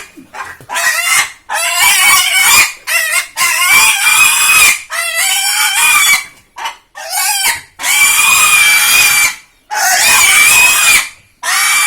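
A pig squealing loudly over and over, in a run of about nine high, piercing squeals, some short and some held for over a second, with brief gaps between them.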